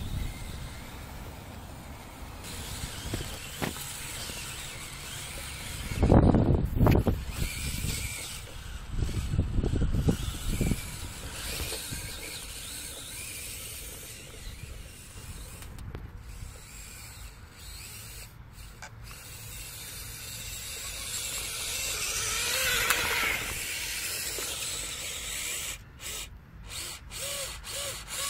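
Small electric motor and gearbox of a 1/24-scale Losi Micro Rock Crawler whirring as it drives through snow towing a trailer. Two louder low rumbles come about six and nine seconds in.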